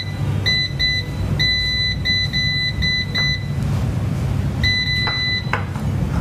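Electric oven's touch-control panel beeping as the temperature is raised: a run of short, high-pitched beeps with two longer held beeps, about a second and a half in and about five seconds in. A low steady hum underneath and a couple of light clicks near the end.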